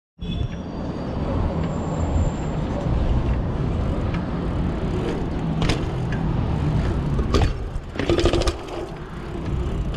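A dirt-jump mountain bike rolling over concrete, heard from its handlebars as a steady low rumble. In the second half come a few sharp knocks as the bike goes down concrete steps.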